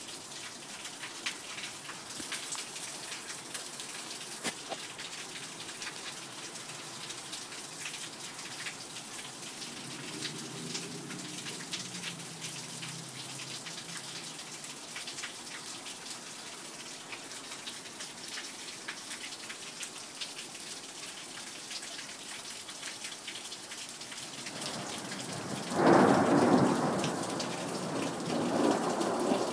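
Steady rain falling, with single drops ticking close by. About twenty-six seconds in, a loud clap of thunder breaks and rolls on, swelling again a few seconds later.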